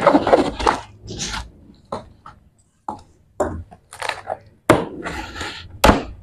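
A cardboard laptop box being cut along its seam with a small cutter knife and then pulled open. There is a run of short scraping and tearing rasps from the blade and cardboard, then a couple of sharp knocks from the box's flaps late on.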